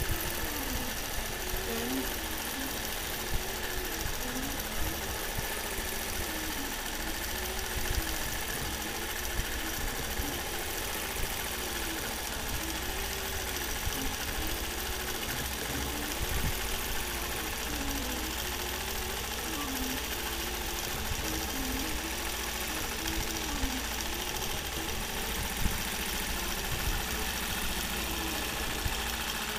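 Nolting Pro longarm quilting machine stitching continuous arcs under IntelliQuilter computer control: a steady running sound with a motor whine that rises and falls in pitch roughly once a second as the head sweeps through each arc, with small clicks.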